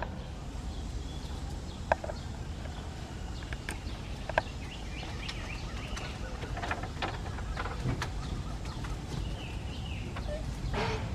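Scattered short clucking and chirping animal calls, with a few sharp knocks, the loudest about two seconds in and again about four and a half seconds in.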